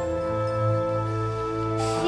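Theatre orchestra playing soft musical underscore: held chords over a low bass note that repeats in steady pulses.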